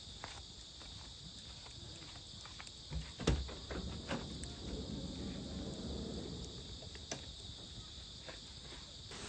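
Insects chirping steadily, with scattered clicks and a louder thump about three seconds in.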